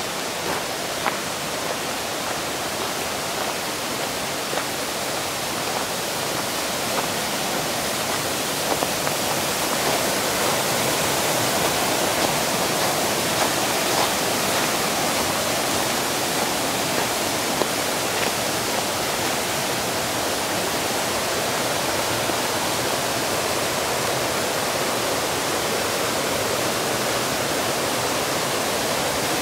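Rushing water of a mountain stream: a steady rush with small splashes, growing a little louder about ten seconds in.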